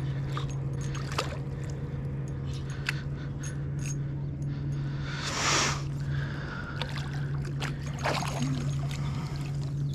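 Water splashing and sloshing as a big common carp, foul-hooked in the tail, thrashes near the bank. The biggest splash comes about five and a half seconds in, with smaller splashes and clicks around it and a steady low hum underneath.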